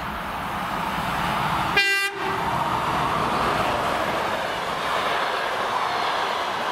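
EP2K electric locomotive giving one short horn blast about two seconds in, a greeting from the crew, over the steady rolling noise of the train, which grows louder as its passenger coaches pass close by.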